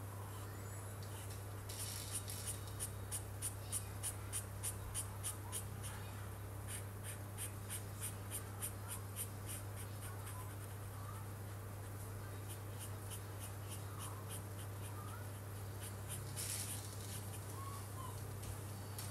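Felt-tip marker scratching across paper in quick back-and-forth colouring strokes, about three a second, over a steady low hum.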